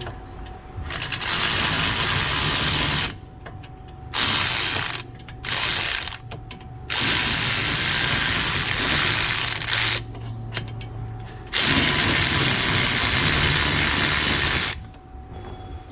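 A wrench spinning the 17 mm brake caliper bracket bolts loose, mechanical ratcheting noise in five loud bursts of one to three seconds each, stopping and starting abruptly.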